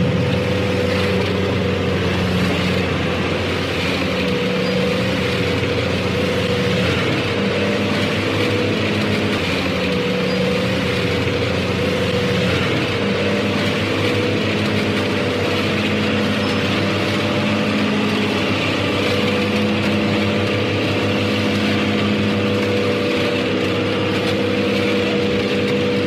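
A motor running steadily: a continuous low hum with a few held tones that shift slightly in pitch now and then.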